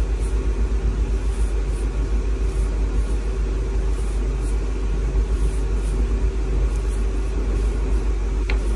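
Steady low rumble, with a brief faint squeak near the end.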